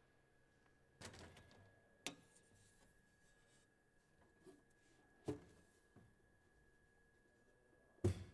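Metal access panel on an Envirotainer container being handled and opened: a few sharp clicks and knocks, the loudest near the end, over a faint steady high hum.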